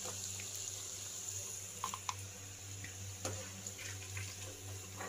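Hot oil sizzling steadily in a kadhai as deep-fried chicken pieces are lifted out, with a few light clicks of the steel slotted spoon.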